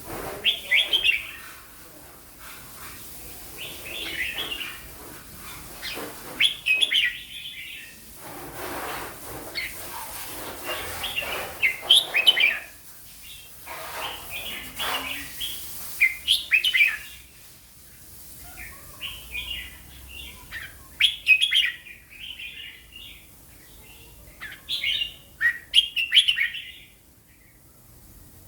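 Caged red-whiskered bulbul singing: short, clear warbled phrases of quick high notes, repeated about every two to three seconds with pauses between, in the slow, clear song style valued in bulbul singing contests.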